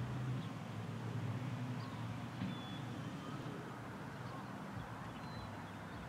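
Outdoor background: a low, steady rumble with a few faint, brief bird chirps.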